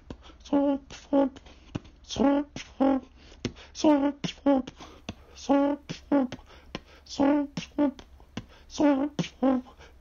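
Background music: a looped beat of short, repeated vocal-like notes and clicks.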